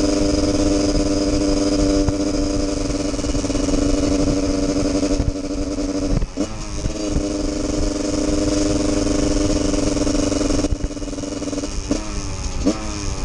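Husqvarna 144 SMR supermoto's two-stroke engine running at steady revs under way. About six seconds in, the revs drop sharply and climb back, and near the end they rise quickly twice.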